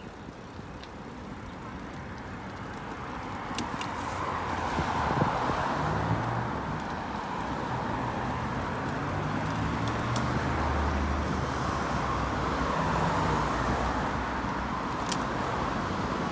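Road traffic on a busy multi-lane city street: a steady rush of car tyres and engines that builds over the first few seconds and then holds.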